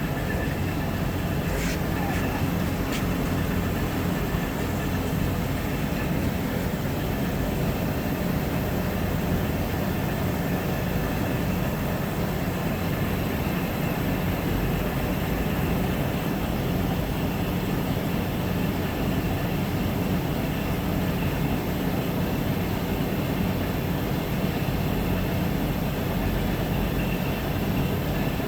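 1957 Monarch Model 32 NN engine lathe running, its 40 hp electric main motor and headstock gearing turning the spindle with a steady hum.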